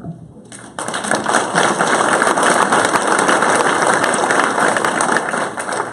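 Audience applauding, starting about a second in and going on steadily, easing off near the end.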